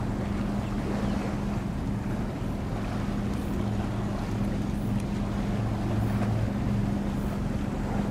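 A ship's engine running with a steady low drone. A second, deeper hum grows stronger around the middle and fades near the end.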